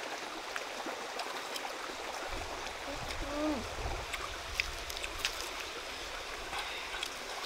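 Steady rush of stream water, with scattered crisp clicks and crunches as raw jicama is bitten and chewed.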